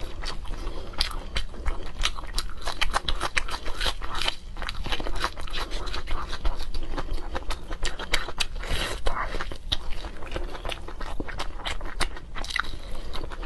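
Close-miked biting and chewing of roasted ribs, a dense, irregular run of wet mouth clicks, smacks and crackles.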